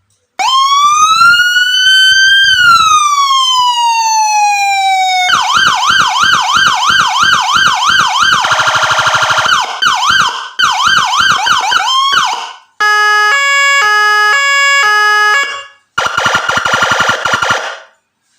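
Electronic siren module sounding Landun 100DA siren tones at full volume through a horn speaker, switching automatically through its patterns. First comes a wail rising for about two seconds and then falling slowly. Next a fast yelp of about three sweeps a second, a rougher warble, and the yelp again. Then a stepping pattern that jumps between several pitches, and last a steady buzzing horn tone, all ear-ringingly loud.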